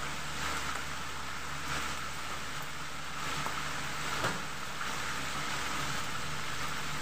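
Pre-boiled chicken pieces deep-frying in a wok of hot oil, sizzling and crackling steadily, with one sharper pop about four seconds in. A low steady hum runs underneath.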